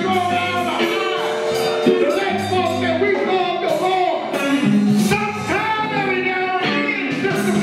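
Live gospel church music: a singing voice over held low keyboard notes, with scattered percussion hits.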